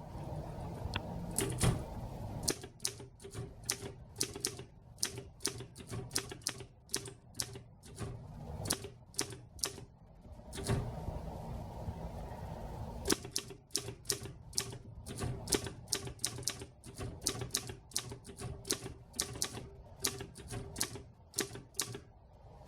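1939 Underwood Master manual typewriter being typed on: quick runs of type bars striking the platen in a rapid clatter, with a brief pause about halfway through.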